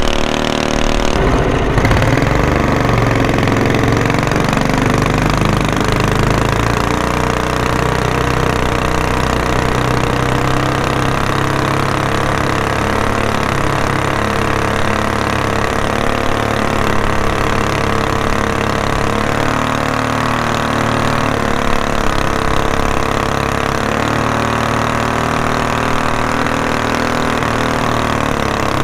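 Predator 212 single-cylinder four-stroke engine on a mud motor, upgraded to about 9 hp with a go-kart kit, running hard as it pushes the jon boat at speed. Its note changes about a second and a half in, then holds steady with slight wavering.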